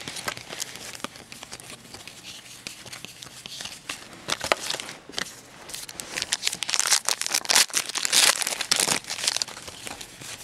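Foil wrapper of a 2010 Panini Gridiron Gear football card pack crinkling and tearing as the pack is ripped open, in irregular crackling bursts that grow louder in the second half.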